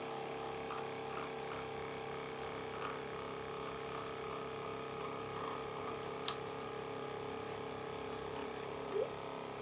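Small electric cotton candy machine running, its motor spinning the heated sugar head with a steady hum. A single sharp click about six seconds in.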